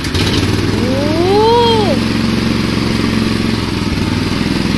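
Small single-cylinder petrol engine driving a sugarcane juicer catches on the recoil-starter pull and runs at a steady speed. About a second in, a short rising-and-falling voice call rises over the engine.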